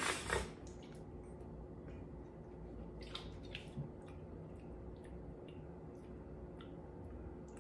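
Soft wet mouth sounds of someone tasting white vinegar: scattered small tongue and lip clicks, about one a second, over a faint steady hum.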